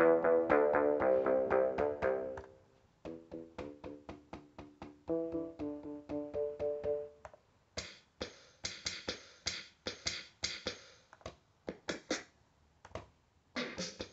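Novation Circuit Tracks groovebox played from its pads through a small practice amplifier. Quick runs of repeated synth notes fill the first seven seconds, shifting pitch about five seconds in, then irregular drum hits follow from about eight seconds in.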